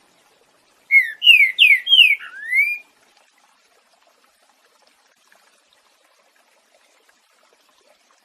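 Green-winged saltator (trinca-ferro) singing one loud whistled phrase in the boiadeiro song style: a quick run of about five falling notes ending in a rising note, about two seconds long.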